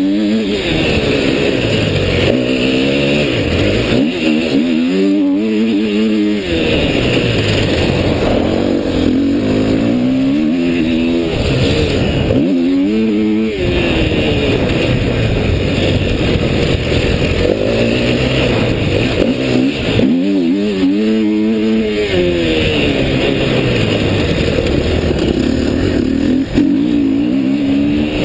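Dirt bike engine revving up and falling back again and again as the rider accelerates, shifts and rolls off the throttle on a dirt track. The pitch climbs and drops repeatedly, with clear drops about five, twelve and twenty-one seconds in.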